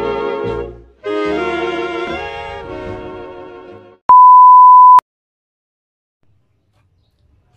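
Brass-led intro music that pauses briefly and starts again. About four seconds in it gives way to a loud, steady one-second test-tone beep, the reference tone that goes with TV colour bars.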